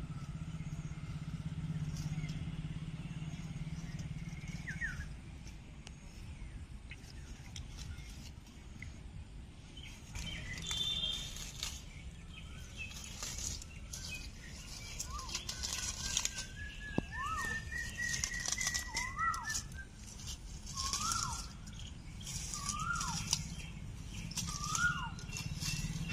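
Rustling of leaves and stems as garden plants are handled, in scattered bursts through the second half, with a low steady hum at the start and near the end. A small bird calls over it: a rapid run of chirps that rises and then falls, followed by single slurred notes every couple of seconds.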